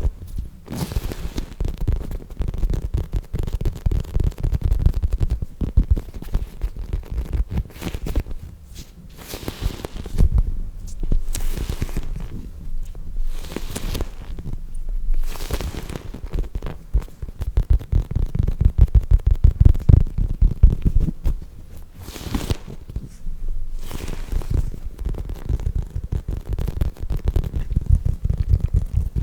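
Soft foam squishy toys squeezed and handled right against the microphone: a close, low, crackling rumble that swells and fades, with a few brief swishes.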